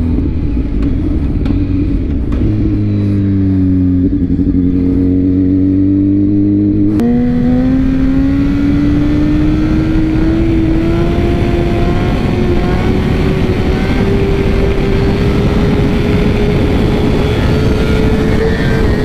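BMW S1000RR's inline-four engine running at road speed, with wind rushing past the helmet. About seven seconds in the engine pitch jumps up abruptly, then climbs slowly and steadily as the bike accelerates.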